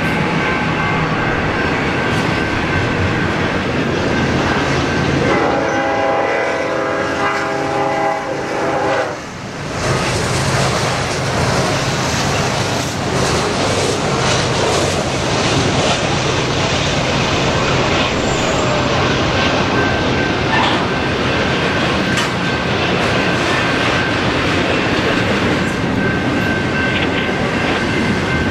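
Double-stack intermodal freight cars rolling past close by: steady wheel and rail noise with clickety-clack from the rail joints. A train horn sounds for about four seconds, starting roughly five seconds in and cutting off suddenly.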